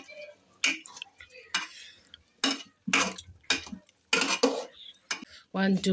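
A spoon stirring fish and dry bamboo shoot curry in a cooking pot, scraping and clinking against the pot in about six short strokes.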